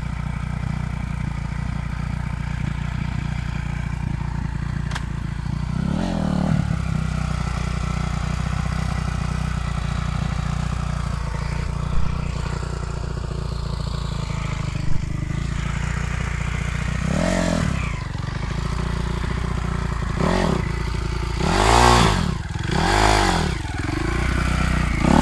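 A 2010 Kawasaki KX250F dirt bike's four-stroke single-cylinder engine idling steadily, blipped with the throttle five times in short revs, the last three in quick succession near the end.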